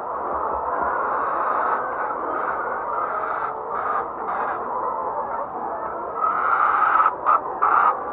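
A flock of hens clucking and squawking together in a constant din, growing louder near the end with a few harsh squawks.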